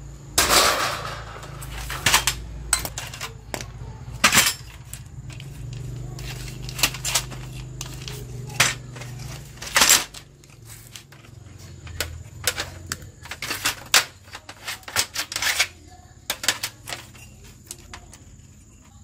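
Sheet-metal clatter and knocks as the metal cover of an electronics receiver case is lifted off and handled, followed by irregular sharp clicks and taps of hands and pliers working on the wires and circuit board inside.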